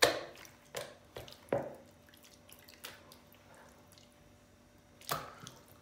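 Raw chicken pieces squelching wetly as they are worked by hand through a marinade in a plastic bowl, with sauce dripping off them. There are about six short squishes, the first the loudest, and quieter stretches in between.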